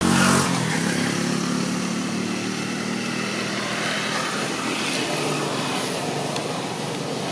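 A motor engine running steadily, loudest in the first half-second and then holding at a fairly even level.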